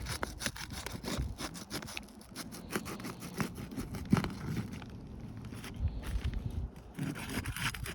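Irregular scraping and rubbing on asphalt roof shingles, a run of short rasping strokes that thins out in the middle and picks up again near the end.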